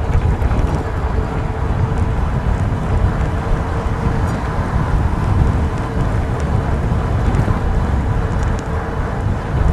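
Wind rushing and buffeting over the microphone of a fast-moving electric fat-tire mountain bike at about 28 mph, a steady loud rumble with a faint steady whine underneath.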